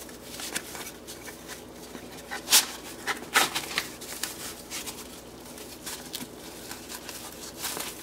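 Polymer Magpul PMAG rifle magazines being jammed into a tight nylon double magazine pouch: rustling and scraping of fabric against plastic with irregular clicks and knocks, the sharpest a little past two and a half seconds and around three and a half seconds in. The pouch is new and stiff, so the second magazine only goes in by force.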